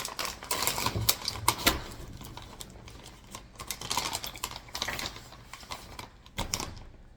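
Plastic snack bag crinkling and rustling in irregular clicks and crackles as it is handled, busiest in the first two seconds and again around the middle, dying down near the end.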